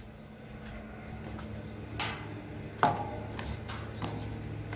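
A steady low machine hum, with two sharp knocks under a second apart about two seconds in and a few fainter clicks after them.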